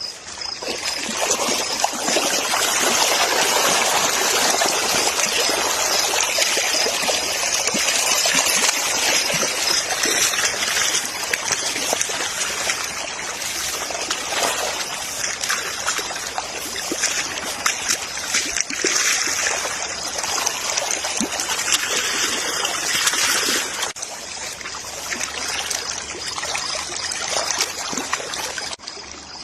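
Water running and trickling steadily, with many small splashes, easing somewhat near the end.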